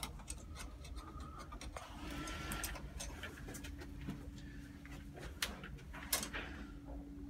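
Light scattered clicks and rustling of hands handling lock hardware and wiring, over a low steady hum.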